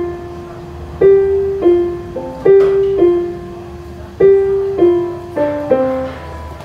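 Portable electronic keyboard in a piano voice playing a slow, simple melody, mostly one note at a time, each note struck and left to fade, with two notes sounded together in places near the end.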